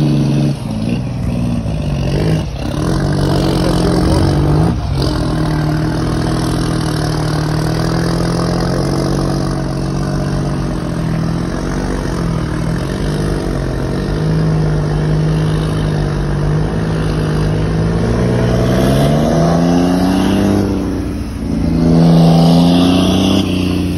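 Scania R-series truck's diesel engine, fitted with an aftermarket exhaust, pulling a loaded dump trailer away and accelerating through the gears. Its deep exhaust note rises and falls with each shift, with a long rising rev near the end.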